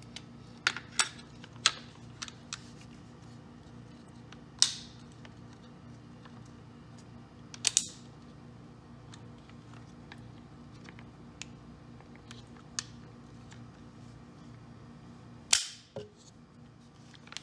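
Sharp metallic clicks and clacks of AR-15 parts being handled as the upper and lower receivers are joined and the take-down pins are pushed home. A quick cluster of light clicks comes in the first few seconds, then single louder clacks about 5 and 8 seconds in, and the loudest one near the end.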